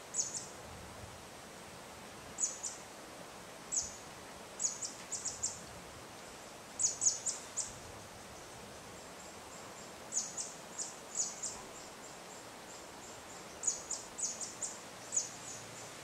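Afternoon tropical mountainside ambience: short, high, thin chirps that fall quickly in pitch, heard singly and in quick runs of two to four every second or few, over a steady soft hiss of insects and light wind.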